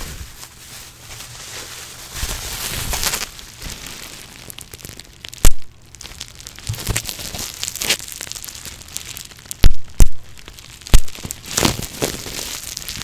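Plastic bubble wrap crinkling as it is squeezed and twisted close to the microphone, with about five sharp pops of bursting bubbles: one about five seconds in and the rest in the last few seconds.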